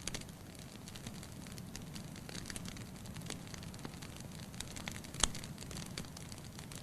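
Wood fire burning in a fireplace: a steady low hiss of flames with irregular sharp crackles, and one louder pop about five seconds in.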